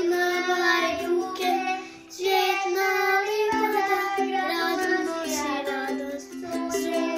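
A child singing a song over instrumental backing, with short breaks between phrases about two seconds in and again near the end.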